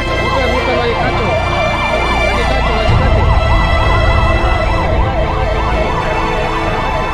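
A fast yelping siren, its pitch sweeping up and down about three times a second, over a steady drone.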